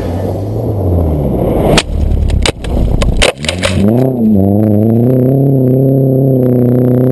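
Rally car at speed on a gravel road, with a rough noisy rush broken by several sharp cracks. From about halfway its engine sets in as a loud drone that dips and rises once, then holds a steady, slightly wavering note.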